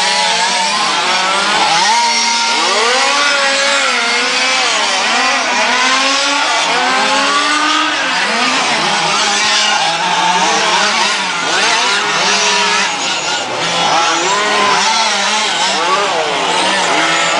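Several radio-controlled model race cars' small engines revving up and down together, their pitches rising and falling over one another as they accelerate and brake.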